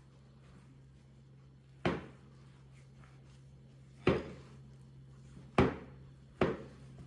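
Four sharp knocks, irregularly spaced over several seconds, from a glass mixing bowl bumping on the countertop while chocolate cookie dough is kneaded in it by a gloved hand, over a low steady hum.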